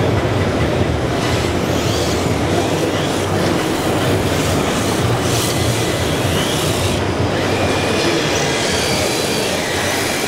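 Steady, loud din of a busy exhibition hall, with faint motor whines from 1:10 scale RC drift cars rising and falling as they slide around the track.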